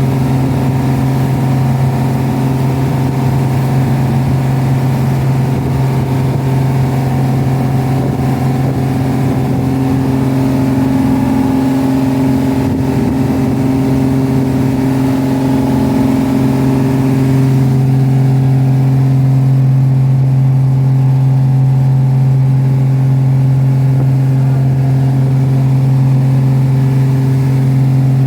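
Boat engine running steadily, a loud low drone whose tone shifts slightly about seventeen seconds in.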